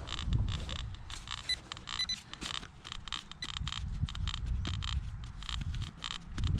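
A small shovel digging into dirt: irregular scraping and crunching strokes, with a few short high beeps from the metal detector about a second and a half to two seconds in.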